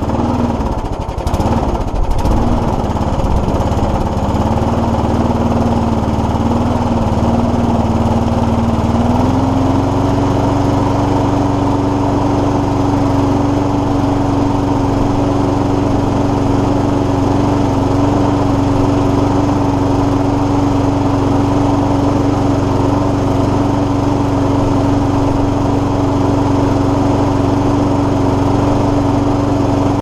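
Briggs & Stratton four-stroke engine on a Mountfield SP480 Turbo rotary lawn mower running just after starting, a little uneven for the first couple of seconds, then steady. About nine seconds in its speed steps up and holds there; it is running nicely.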